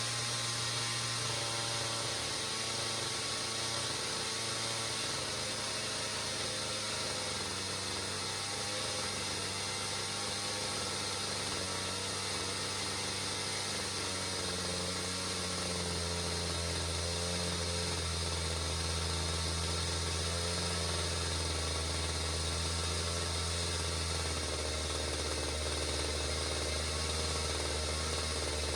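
Pioneer P-41 chainsaw's 66cc two-stroke engine idling steadily, its pitch settling slightly lower about halfway through.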